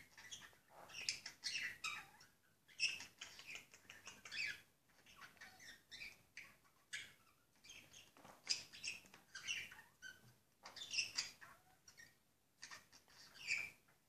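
Pet budgerigars chirping and chattering in many short, high calls, some sliding in pitch, with brief pauses between them.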